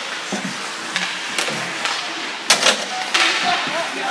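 Ice hockey play in an arena: a steady hiss of skates on the ice broken by several sharp knocks and scrapes from sticks, puck and skates, the loudest about two and a half seconds in.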